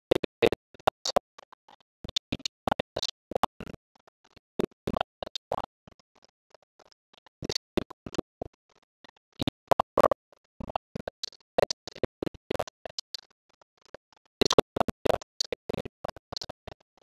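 Stylus tapping and scratching on a writing tablet as equations are hand-written, in short clusters of clicks and scrapes with brief pauses between strokes.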